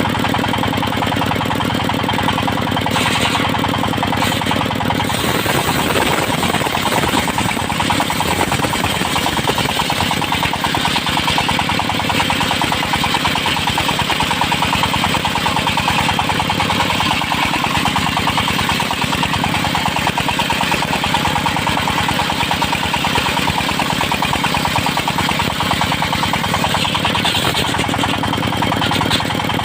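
Engine driving a circular sawmill, running steadily with a rapid firing beat. About five seconds in, a higher hiss joins it and carries on until near the end.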